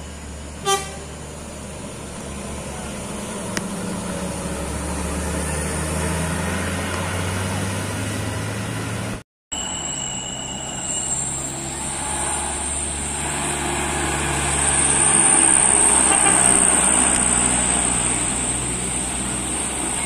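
Heavy diesel buses and a truck driving past, engines working under load and growing louder as they approach, with one brief horn toot about a second in. The sound cuts partway through to a second pass, which is at its loudest near the end.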